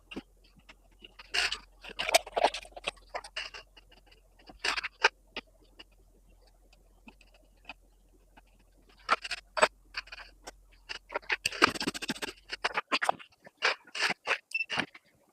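Irregular clicks, taps and scrapes of hands and tools handling the TV's circuit boards during repair, with a couple of longer bouts of scraping and rustling.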